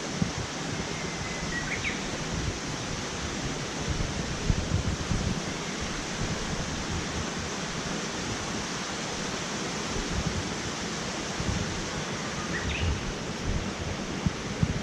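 Mountain stream rushing steadily, a continuous even hiss of water, with two faint short chirps about two seconds in and near the end.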